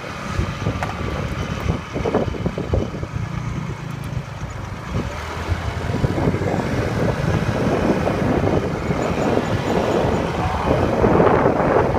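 Wind rumbling and buffeting on the microphone, mixed with road and passing traffic noise while moving along a street, growing louder in the second half.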